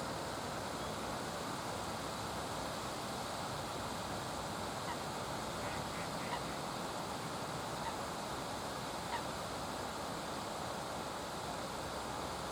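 A few short, faint calls of a Eurasian coot, scattered from about five seconds in, with a cluster around six seconds, over a steady rushing background noise.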